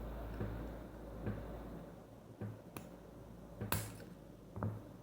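Faint handling noises on a workbench: a few light clicks and taps of small hard objects being picked up and set down, the sharpest nearly four seconds in.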